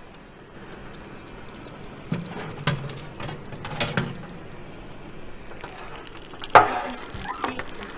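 Oven door opened and the metal oven tray with a steel pan on it pulled out along its rails: a few light metallic clinks and knocks, then a sharper clatter about six and a half seconds in.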